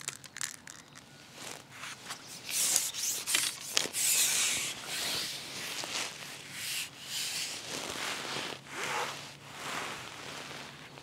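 Rubbing and rustling close to the microphone, coming in uneven swells, with a few light clicks in the first two seconds.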